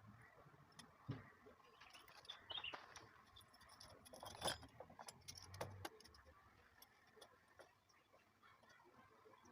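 Near silence broken by faint scattered clicks and light knocks, the loudest about four and a half seconds in.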